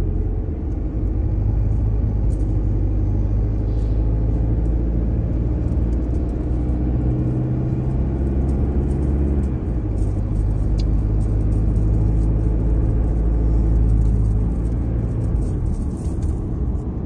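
Car engine and low road rumble heard from inside the cabin while driving at steady speed, the engine note changing about ten seconds in.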